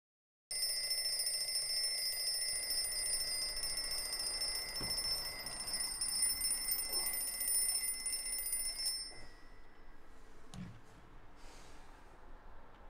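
Newgate twin-bell mechanical alarm clock ringing, its hammer rattling rapidly against the bells. The ringing starts suddenly and stops about nine seconds in. A knock follows as the clock is grabbed and handled.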